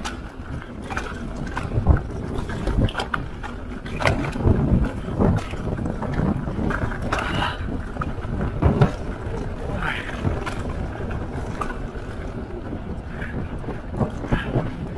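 Wind rushing over an action camera's microphone and a mountain bike's tyres rumbling over a dirt trail, with frequent knocks and rattles as the bike hits bumps on the descent; the sharpest knocks come about 2 seconds in and near the middle.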